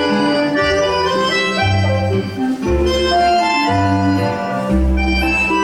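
Ballroom dance music on an organ-like keyboard: sustained chords over a bass line that steps to a new note about every second.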